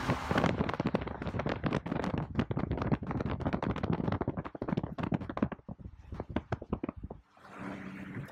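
Rapid irregular crackling and buffeting on the microphone of a phone filming from a moving car, over steady road noise. About seven seconds in it drops off to a quieter, steady cabin hum.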